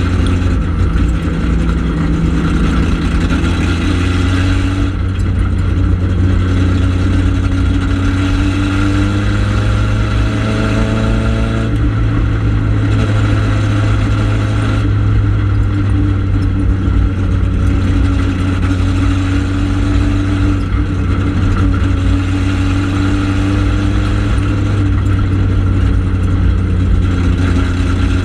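Four-cylinder ministock dirt-track race car's engine heard from inside the cockpit, running hard at racing speed. Its revs rise and fall every few seconds as it laps the track.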